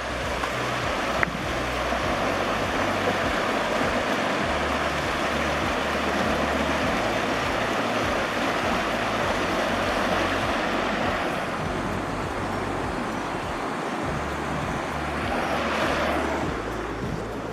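Steady rushing of a fast-flowing stream, swelling and easing a little, with a low rumble of wind on the microphone underneath.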